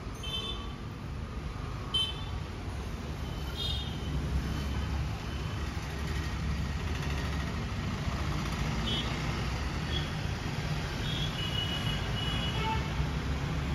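Street traffic: a steady low rumble of passing motorbikes and other vehicles, with short high-pitched tones now and then.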